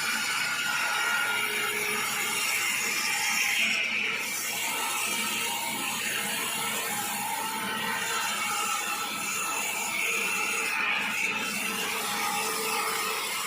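Sawmill saw cutting through an acacia log, a steady machine noise with a wavering whine from the blade in the wood.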